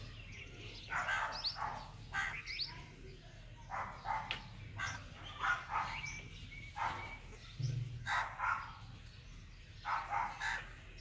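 Short animal calls repeated many times, coming in clusters of two or three about every second, with a few high chirps among them over a faint steady low hum.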